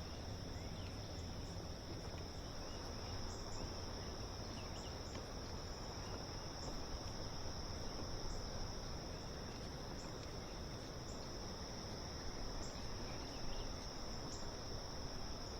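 Steady chorus of crickets, a continuous high-pitched trill that does not let up, over the even rush of the river.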